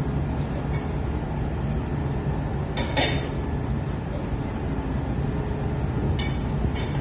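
Steady low rumble of a ship's engines heard from the deck, with two brief sharp sounds about three and six seconds in.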